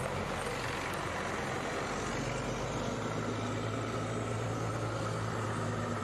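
Vehicle engine idling steadily: a low, even hum under a steady hiss.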